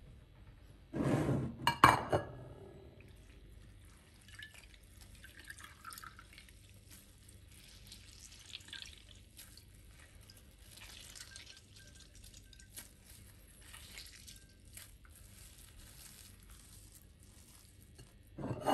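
Water dripping and trickling back into a bowl as soaked bread is squeezed out by hand, in scattered faint drips. About a second in, a couple of louder knocks of ceramic dishes on the worktop, and another clatter right at the end.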